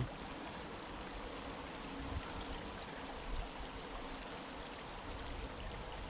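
River water running steadily over shallow riffles, an even rushing with no break.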